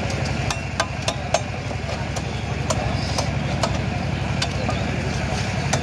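An engine idling steadily close by, a fast even low throb, with a scatter of sharp clicks and taps over it.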